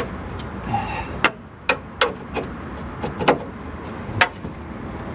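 About half a dozen sharp, irregularly spaced clicks and clinks of a hand tool working on the radiator's mounting bolts, over a steady low background noise.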